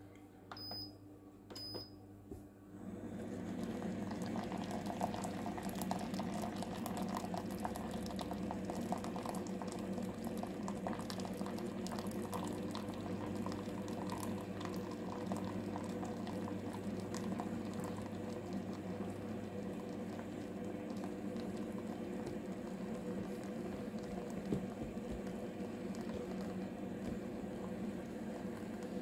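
Two short electronic beeps as the button is pressed, then, a couple of seconds later, an instant hot-water dispenser starts running, heating and pouring near-boiling water into a mug: a steady bubbling, hissing flow with a steady hum under it.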